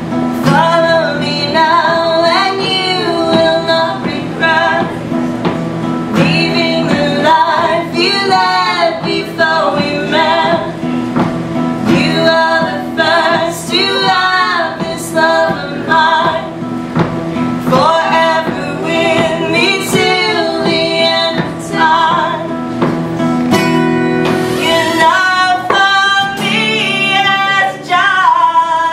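Two women singing together over two strummed acoustic guitars, played live and unamplified.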